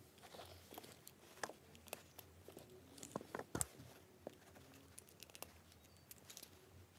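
Faint clicks and rustles of plastic Lego Power Functions parts and cables being handled, with plugs pressed together. The sharpest click comes about three and a half seconds in.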